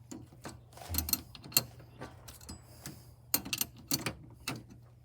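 Irregular metallic clicks and taps of faucet parts and tools being worked by hand.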